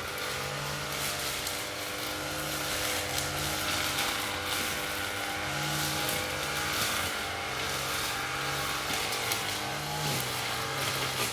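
Lawn mower engine running steadily, its note shifting slightly up and down every second or so.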